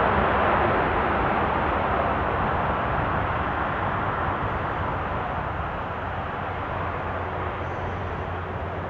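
Airbus A330-300 freighter's twin jet engines running on the runway: a steady rush of engine noise with a low rumble under it, fading gradually as the aircraft moves away.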